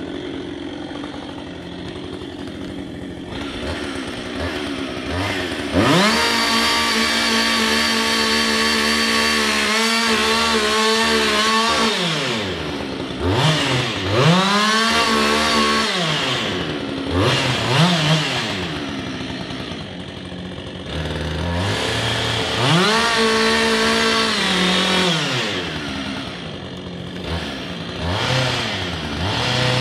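Two-stroke chainsaw cutting at the base of a spruce trunk. It idles, revs up to full speed about six seconds in and holds it for about six seconds, falls back through several short blips of the throttle, then runs up to full speed twice more with idle between.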